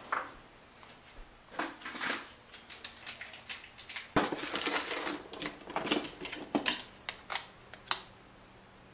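A kitchen drawer pulled open, then the loose odds and ends inside clicking and clattering as hands rummage through them, with a dense run of sharp knocks in the second half that stops about a second before the end.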